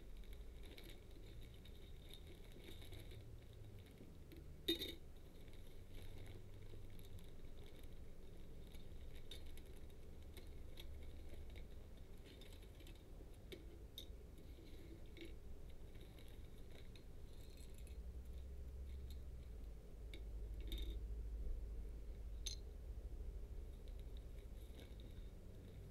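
Faint handling of a clear plastic bag and hard plastic model-kit sprues: rustling and scattered light clicks as the parts are taken out and set down on a cutting mat, with one sharper click about five seconds in.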